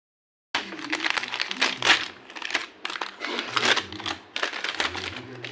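Packaging of an oil pastel set being unwrapped and handled: irregular crinkling and rustling with sharp crackles, starting about half a second in.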